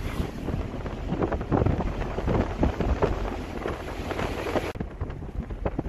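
Wind buffeting the microphone over the low rumble of a moving vehicle, heard from inside its open-windowed passenger cab; the hiss thins out near the end.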